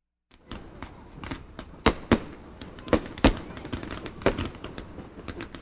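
Fireworks going off: a quick series of sharp bangs and crackles over a low rumble, starting suddenly out of silence. The loudest bangs come about two, three and four seconds in.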